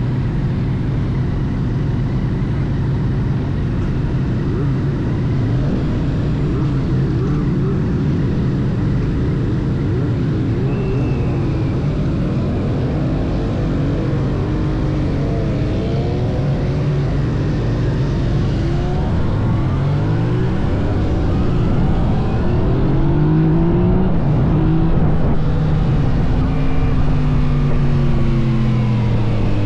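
Yamaha MT-09 SP's inline three-cylinder engine, heard on board while riding. It runs at a steady pitch at first, then from about two-thirds of the way in its pitch rises and falls repeatedly as it revs up and back down.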